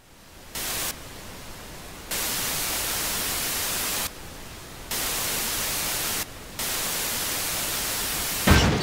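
Old television's static hiss, jumping between louder and softer stretches several times, ending with a short thump near the end.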